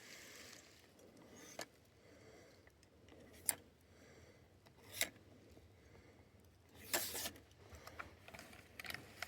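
A few faint, sharp clicks and taps spread several seconds apart, with smaller ticks near the end, over a quiet background.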